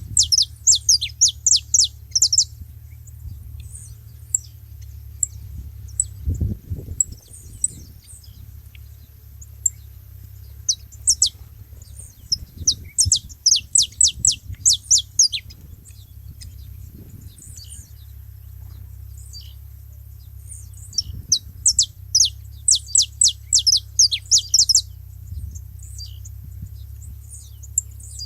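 Saffron finches chirping in rapid series of sharp, high, quickly falling notes. The chirping comes in three long bursts, at the start, around the middle and near the end, with scattered single chirps between. A steady low rumble runs underneath.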